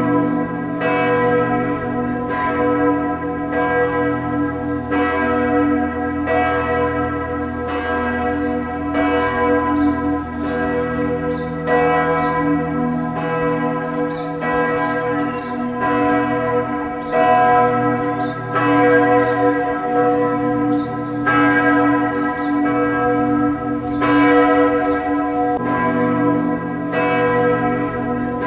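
Church bells of the St. Andreas parish church ringing together in a continuous peal, fresh strikes coming about once a second and each ringing on under the next.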